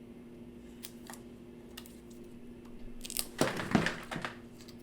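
Faint clicks of small phone parts being handled over a steady low hum. About three seconds in there is a loud crinkling, crackling burst of handling noise lasting about a second.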